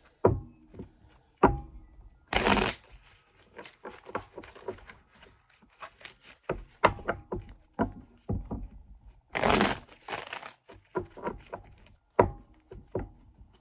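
Tarot cards being shuffled and handled: a string of sharp taps and knocks as the deck is worked, with two brief rushing bursts, about two seconds in and again about nine seconds in.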